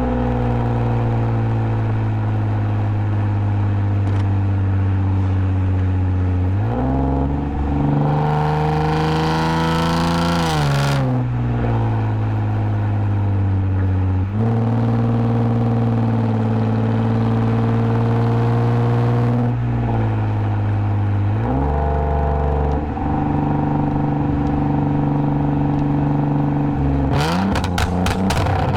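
2010 Lexus IS250 AWD's V6 engine through an aftermarket full exhaust with valved mufflers, mostly holding a steady drone while cruising. Several times it rises in pitch under acceleration and drops back at a gear change. A few quick clicks near the end.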